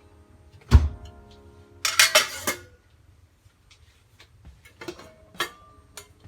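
Kitchen handling sounds: a heavy thump about a second in, a short clatter of dishes or utensils, then a few light clicks.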